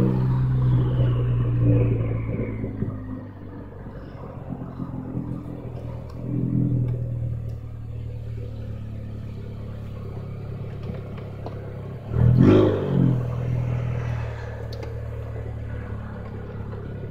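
Straight-piped 2014 Ford Focus ST's turbocharged four-cylinder exhaust heard from inside the cabin while driving. The note falls away as it comes off the throttle in the first few seconds, revs briefly about six seconds in, and revs sharply and loudly about twelve seconds in before settling to a steady low drone.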